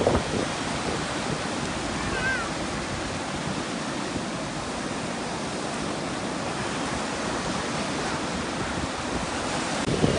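Sea waves washing on a sandy beach: a steady rushing surf.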